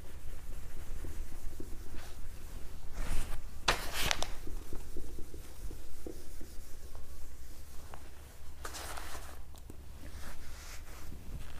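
Whiteboard duster rubbing across a whiteboard, wiping off marker writing in a series of strokes, the strongest about three to four seconds in and again near nine seconds.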